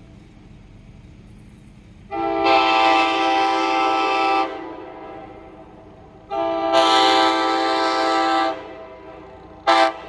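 Nathan K5LA five-chime locomotive air horn sounding its chord in two long blasts of about two seconds each, then a very short toot near the end.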